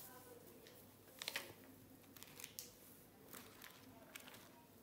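Faint handling of a plush-covered paper diary as it is opened: a few soft clicks and paper rustles, the sharpest cluster about a second in.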